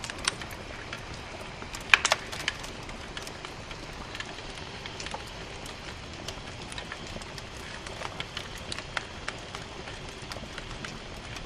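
Wood fire crackling inside a Meseta wood stove: a steady low hiss with scattered sharp pops and snaps, the loudest few about two seconds in.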